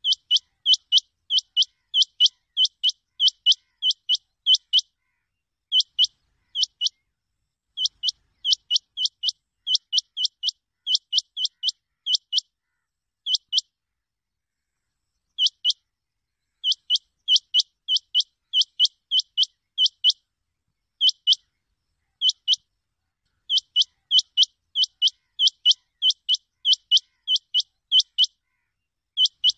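Rain quail calling: short, sharp, high notes repeated about two or three a second in long runs, broken now and then by a pause of a second or two.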